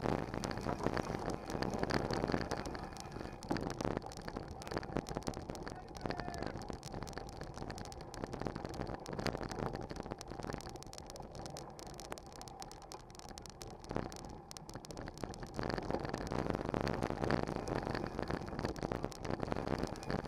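Mountain bike riding over loose, rocky gravel, heard through a camera mounted on the bike: continuous tyre rolling noise with constant rattling and knocking of the bike and mount. It gets louder again for the last few seconds.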